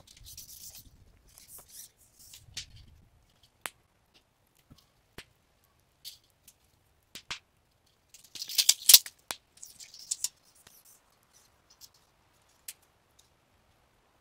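Footsteps and rustling on a forest floor of dry leaves and twigs, with scattered sharp clicks as a long measuring tape is handled. The loudest burst of rustling and clicking comes about eight to nine seconds in.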